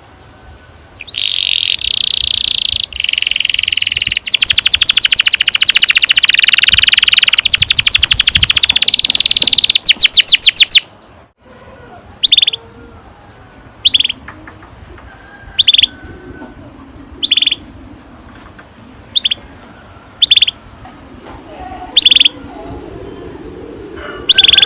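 Domestic canary singing a long, loud rolling song of fast trills for about ten seconds. It stops abruptly, and about eight short single chirps follow, spaced a second and a half to two seconds apart.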